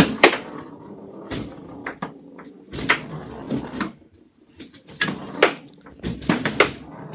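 Foosball table in play: irregular sharp clacks and knocks from the ball being struck by the players on the rods and hitting the table, with the rods knocking as they are jerked.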